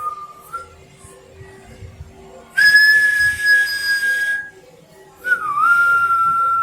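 Whistling in long, steady held notes: one note ends about half a second in, a louder, higher one is held for about two seconds, and a third starts near the end with a short dip in pitch before holding steady.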